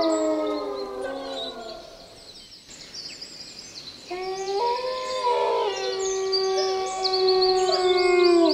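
A chorus of howling: several long, overlapping calls that slide down in pitch. They die down about two seconds in and rise again about four seconds in. Fast bird trills sound high above them.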